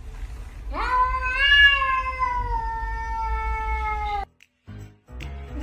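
A domestic cat gives one long drawn-out meow of about three and a half seconds. It rises at the start, holds, then slowly sinks in pitch before cutting off abruptly. Just before the end, a few short clicks and sounds follow.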